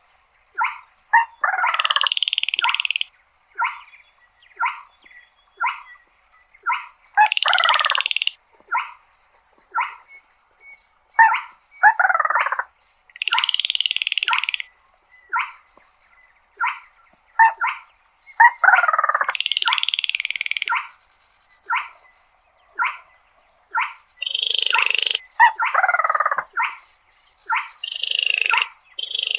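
Baillon's crake calling: a steady series of short sharp notes broken about every six seconds by a dry, frog-like rattle lasting about a second and a half, with calls that slide downward in pitch.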